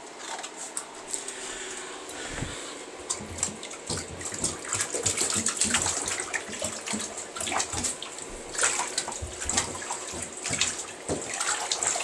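Shallow bathtub water splashing and sloshing as a small dog moves around in it, in irregular splashes that grow busier after the first few seconds.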